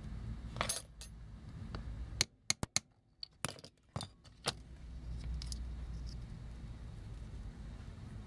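A scatter of sharp little clicks and clinks of small hard parts being handled, most of them packed into the middle couple of seconds, over a low steady hum.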